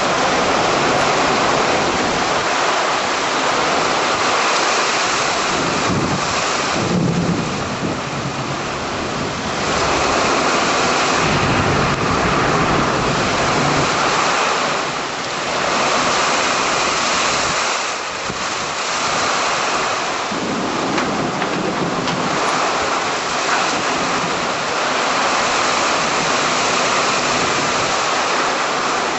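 Heavy rain pouring steadily in a severe thunderstorm with strong wind, and a low rumble swelling up twice.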